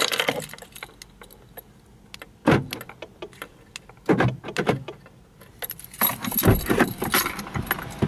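A bunch of car keys on a ring jangling as a Volkswagen flip key is handled, with scattered clicks and jingles that come thickest in the last two seconds or so.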